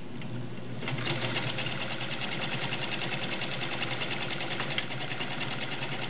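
Kenmore Model 29 straight-stitch sewing machine with a 1.2 amp motor stitching through fabric: a rapid, even needle clatter that comes up to full speed about a second in and runs smoothly.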